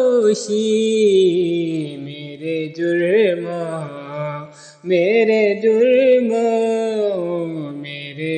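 Male voice singing a naat in long, drawn-out melodic phrases; one phrase fades out about four and a half seconds in and the next begins right after.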